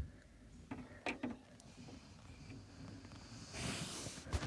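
A phone being handled at close range, with skin and fabric rubbing on the microphone: a sharp knock at the start, a few faint clicks about a second in, then louder rustling near the end.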